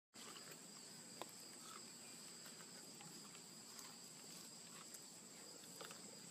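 Faint, steady chorus of crickets or similar insects, two high pitches held without a break, with a few faint clicks, one sharper click about a second in.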